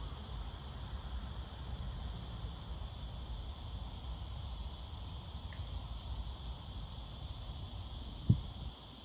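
Insects, crickets, buzzing steadily at a high pitch over a low rumble of wind. A single thump near the end.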